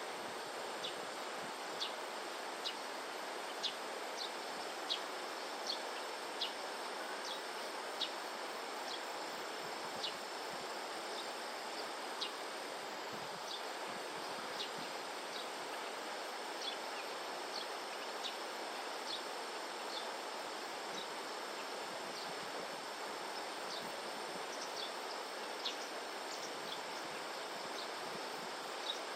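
Steady outdoor background noise with short, high chirps repeating irregularly, about once a second, more often in the first half.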